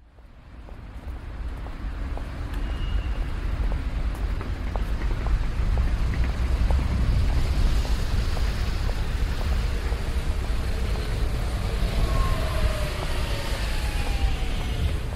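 City street traffic: cars and other vehicles running and passing, a steady low rumble that fades in over the first two seconds.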